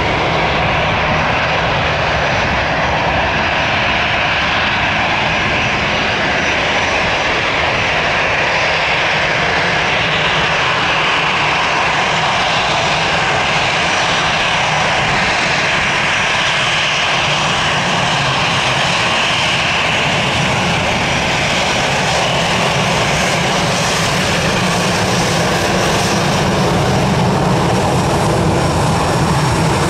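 Airbus A320 airliner's jet engines running at low power on the ground: a steady rumble with a thin high whine above it.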